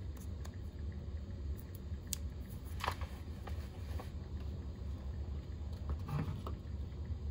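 Steady low hum of a tumbler spinner's small motor turning a freshly epoxied cup, with a few faint light taps and clicks from handling.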